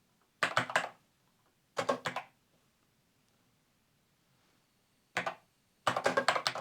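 Keys typed on a Commodore 64 Ultimate keyboard: short bursts of a few clicks with pauses of a second or more between them, a single key press, then a longer run of keystrokes near the end.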